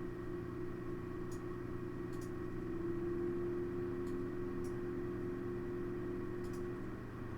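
Cooling fans of an Asus Radeon HD 7950 DirectCU II TOP V2 graphics card whirring inside a closed PC case, with a steady droning tone over the air noise. The tone grows louder about three seconds in and eases near the end. It is the annoying tone this card's fans give off at certain fan speeds.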